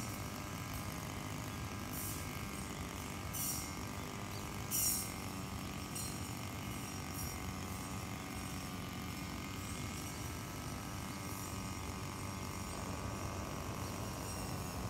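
Brush cutter engine running steadily, its pitch wavering slightly, with a few short sharp ticks, the loudest about five seconds in.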